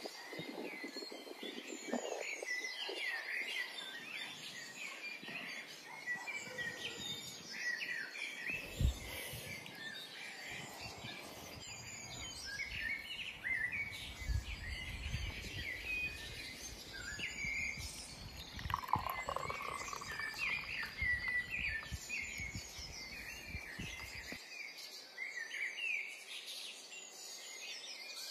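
Many small birds chirping and singing, short calls and trills overlapping throughout, with a single low thump about nine seconds in and a low rumble for a few seconds mid-way.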